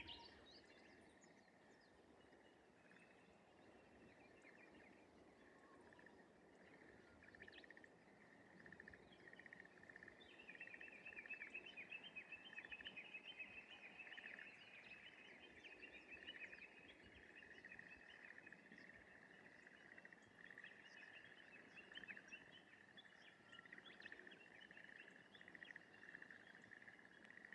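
Faint morning rice-paddy ambience: a steady chorus of calls, joined about ten seconds in by a dense, rapid rattling trill of short notes. This fits the unidentified 'karakara' rattling call that the recordist could not place as bird or frog.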